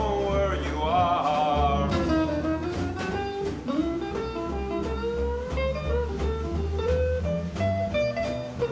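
Acoustic blues band playing. A long wavering note ends about two seconds in, then a melodic lead line carries on over a steady bass and guitar.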